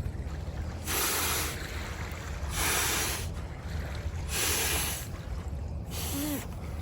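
Small lake waves washing onto a sandy beach: four rushes of hiss about every second and a half, over a steady low rumble.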